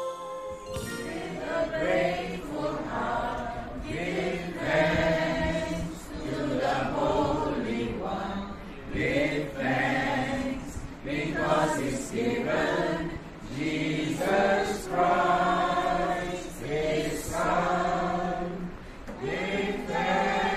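A mixed group of men and women singing a song together.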